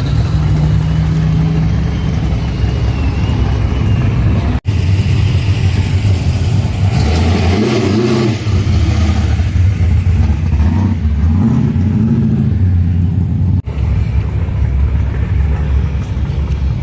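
Loud car engines running and revving, the engine note rising and falling in the middle, broken twice by abrupt momentary cuts.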